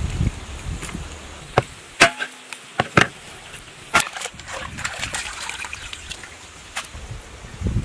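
Knife chopping raw pork on a wooden board: a handful of sharp, irregular chops in the first half. Then wet splashing as the pork pieces are handled in a bowl of water.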